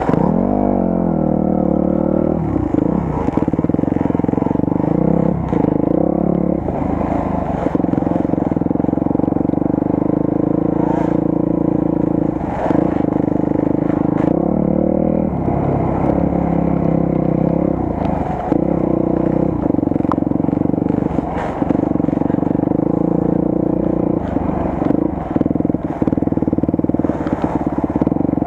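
Enduro motorcycle engine running at fairly steady revs, its note dipping and picking up again every few seconds as the throttle is worked. Short knocks and clatter sound throughout as the bike rides over rough ground.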